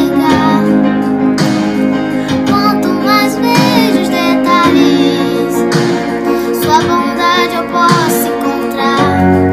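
Background song: a high sung voice over guitar accompaniment with held chords.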